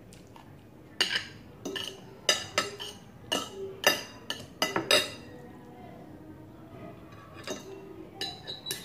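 Metal spoon and fork clinking and scraping against a ceramic plate of rice: a quick run of sharp clinks for a few seconds, a short lull, then a few more near the end.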